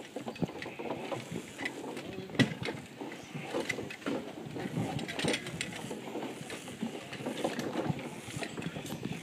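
Footsteps on the wooden plank deck of a rope suspension bridge, with irregular knocks, a couple of them sharper, as two people walk across.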